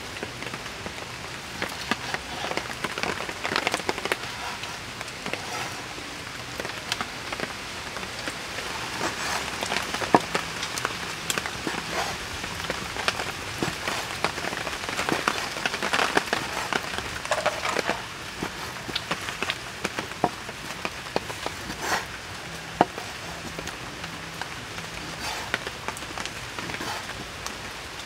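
Cleaver cutting raw beef into chunks on a wooden cutting board: irregular short taps and clicks of the blade against the wood, over a steady hiss.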